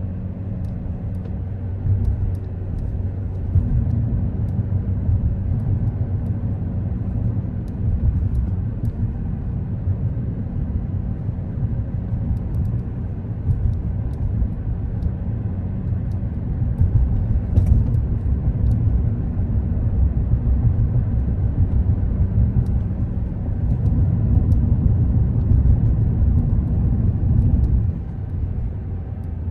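Car driving on city streets: a steady low rumble of engine and road noise that grows louder for a few seconds near the end, then drops back.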